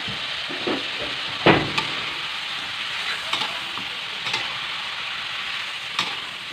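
Pork heart and liver pieces with ginger sizzling in a wok, stirred with a metal spatula that scrapes and clanks against the pan about half a dozen times over a steady sizzle, the loudest stroke about one and a half seconds in.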